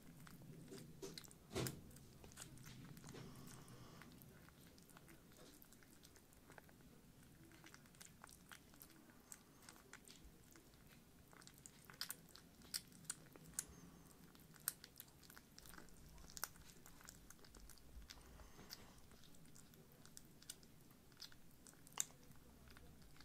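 Two kittens eating soft weaning food from ceramic bowls: faint chewing and mouth sounds with many small scattered clicks.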